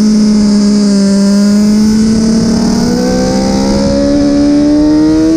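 Honda CBR1000RR-R Fireblade's inline-four engine heard from on board, pulling under acceleration. Its pitch holds for a moment and then rises steadily, over a constant rush of wind.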